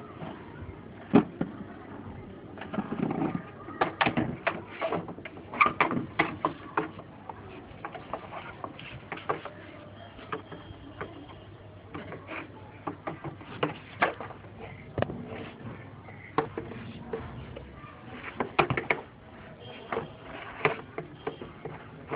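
Scattered sharp knocks and taps of a hollow plastic stool being bumped, tipped and set down on a concrete floor, some louder than others.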